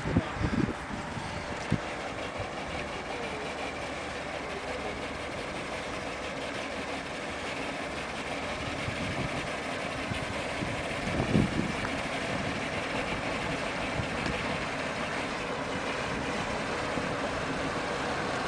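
Old crane truck's engine idling, a steady running sound mixed with street noise, growing slightly louder in the second half, with a brief louder sound about eleven seconds in.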